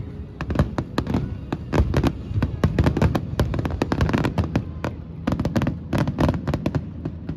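Fireworks going off in quick succession: a dense run of sharp bangs and crackles, several a second, that stops abruptly near the end.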